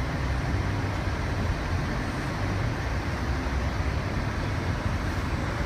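Steady rumble of a car driving, its engine and tyre noise heard from inside the cabin.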